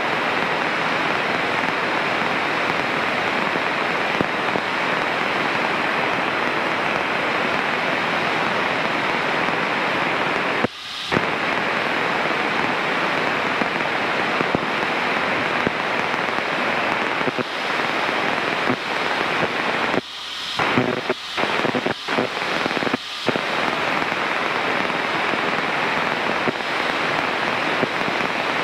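Steady hiss of static from the aircraft radio in a Cessna 152, the kind of radio interference that goes with a hot, humid afternoon. The static cuts out briefly about a third of the way in, then several times in quick succession past the middle.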